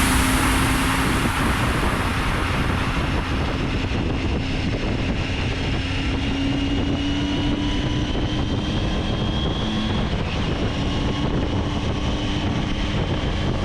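Motorcycle engine running steadily while riding, with wind noise on the camera's microphone; its faint engine tones drift slowly higher.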